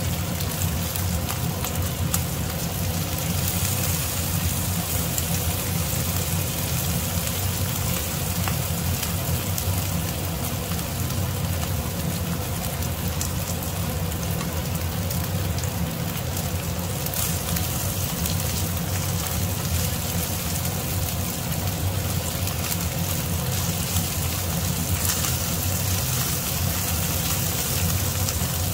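Marinated beef slices sizzling and crackling in butter and sauce in a frying pan, steady throughout, over a constant low hum.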